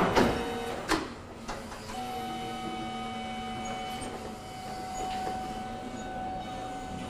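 Forklift motor whining at a steady pitch while its forks push a heavy robot arm round, with a couple of knocks in the first second.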